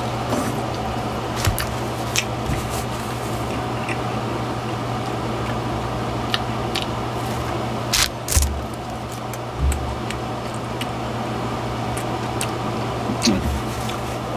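Eating sounds: biting and chewing a Hunger Buster burger and soggy fries, heard as scattered short clicks, with a few louder ones about eight and ten seconds in, over a steady low hum.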